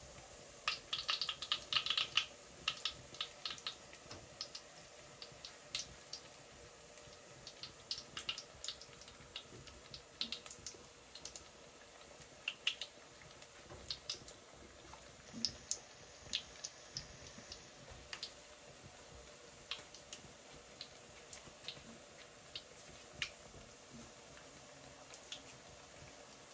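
Irregular sharp pops and crackles of bhajia fritters frying in hot oil over a wood fire. The pops are densest in the first couple of seconds, then scattered.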